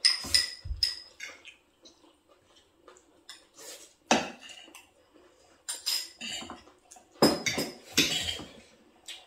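Metal cutlery clinking and scraping against plates as people eat, in irregular strikes, a few ringing briefly near the start and a denser run near the end.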